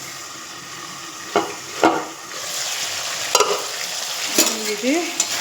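A metal utensil knocks and scrapes against a pan several times while food fries in hot oil, the sizzle growing louder from about halfway through.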